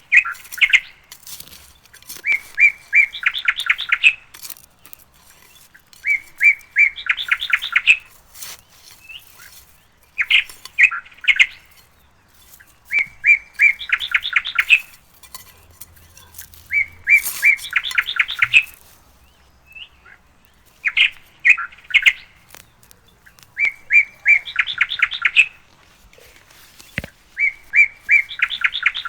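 A bird singing the same short song over and over, about every four seconds: a few clear notes followed by a quick trill.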